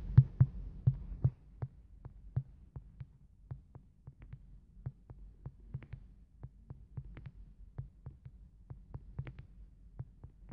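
Fingertip taps on a smartphone touchscreen, picked up by the phone's own microphone as a rapid, uneven run of soft thuds with light clicks, about three a second, firmest in the first second or so, as follow requests are accepted one after another.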